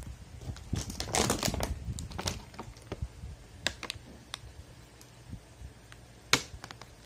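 Clear plastic bag of hand-guard mounting bolts and hardware being handled: crinkling plastic with scattered clicks of the metal parts. There is a denser burst of rustling about a second in and one sharp click near the end.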